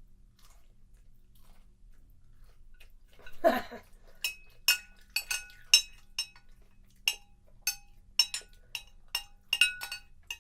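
Metal spoon clinking against a ceramic cereal bowl: a dozen or so sharp clinks at an irregular pace, each ringing briefly at the same few pitches. A short, louder noise comes just before the clinks start.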